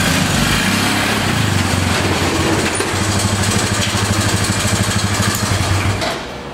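The small engine of a 1969 Roof Palomino lawn mower mini jeep running steadily under load as the jeep is driven, with a rapid, even firing pulse. It cuts off about six seconds in.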